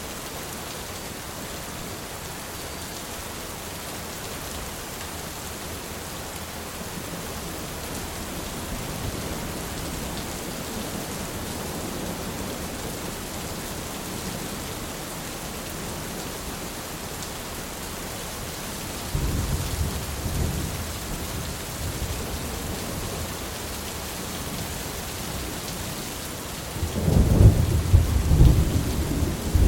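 Steady rain falling, with thunder rumbling: a low roll starts about two-thirds of the way through and a louder rumble comes near the end.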